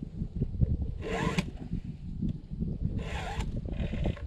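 Round file rasping across the cutters of a Stihl MS261 C-M chainsaw's chain during hand sharpening: three short strokes, the last two close together.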